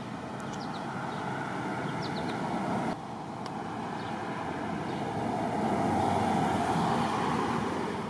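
Road traffic noise from a passing car. It drops abruptly about three seconds in, then swells to its loudest around six seconds in and eases off. A few faint short bird chirps sound in the first few seconds.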